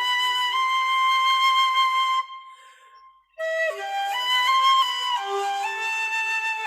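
Flute melody played at a steady level: a long held note, a break of about a second near the middle, then a phrase of notes stepping up and down.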